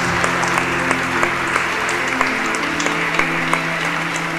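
Audience applauding, with background music of long held notes underneath.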